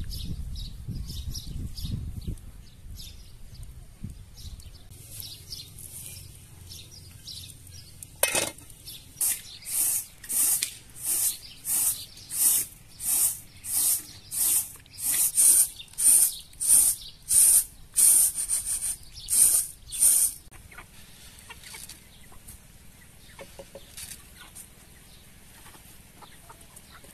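Rice being shaken and tossed on a round metal tray, a rhythmic swishing hiss about twice a second that goes on for some twelve seconds and then stops. Chickens cluck before and after it.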